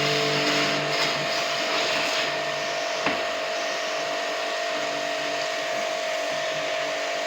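A small electric motor running steadily with a hiss over it, a low hum swelling in the first two seconds and again about five seconds in.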